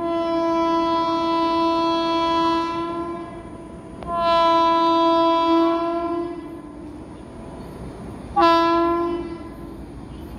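Horn of an approaching train's locomotive, sounded three times at one steady pitch: a long blast, a second long blast about a second later, then a short blast near the end.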